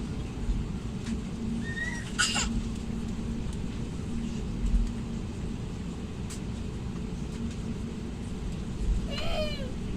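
Steady low hum inside the cabin of an Airbus A320neo on the ground. A brief high, falling cry of a voice is heard near the end, with a short click about two seconds in.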